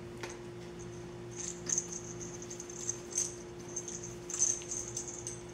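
A series of short, very high, thin squeaks from four-week-old puppies, starting about a second and a half in, over a steady low hum.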